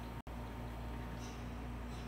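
Quiet room tone: a steady low hum with faint background hiss, broken by a split-second dropout to silence about a quarter second in.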